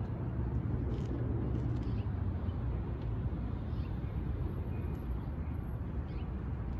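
Steady low outdoor rumble of background noise, with a few faint high chirps.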